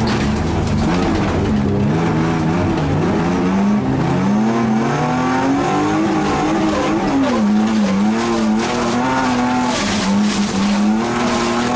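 Race car's engine running hard on a gravel track, heard from inside the car, its pitch rising and falling again and again as the driver works the throttle, over a steady rush of tyre and gravel noise.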